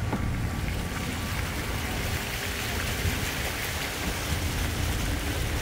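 Steady rushing-water noise over a low rumble, the water sound growing stronger about a second in.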